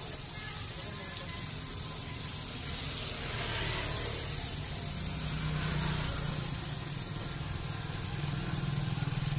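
Steady sizzling hiss of battered chicken pieces deep-frying in a large pan of hot oil, late in the frying when the pieces float, while a wire strainer scoops them out. Under it runs a low hum that grows stronger in the second half.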